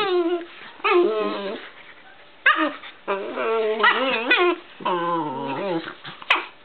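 Dogs play-wrestling, one of them making rising and falling whining, yelping play noises in about five short bouts with pauses between. A single sharp click comes near the end.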